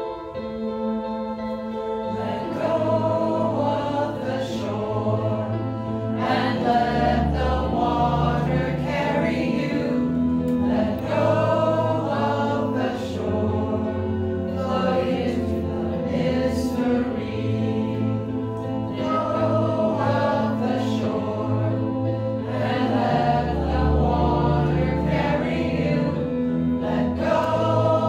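A small mixed choir singing a slow song in parts over keyboard accompaniment, the voices coming in about two seconds in and going on in long phrases.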